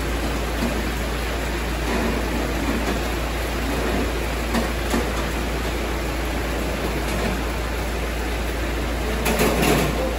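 Heavy rain falling as a steady hiss, with a low rumble underneath. A brief louder rustle about nine seconds in.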